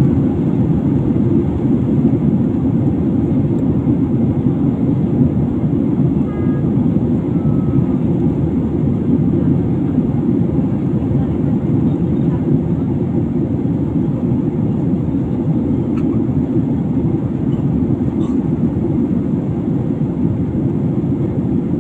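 Steady low rumble of an airliner's engines and airflow heard inside the passenger cabin, even and unbroken.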